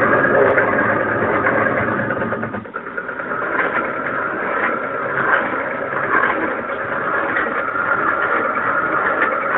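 Three-axis CNC machine running. A low hum drops out a little under three seconds in, and a higher, noisier machine sound carries on.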